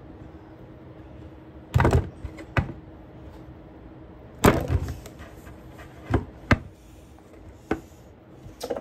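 Plastic slime tubs being picked up and set down on a table: a series of irregular knocks, loudest about two seconds in and again about four and a half seconds in.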